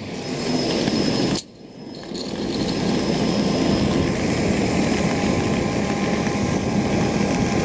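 Steady jet aircraft engine noise with a faint high whine. The sound drops out briefly about a second and a half in, then resumes.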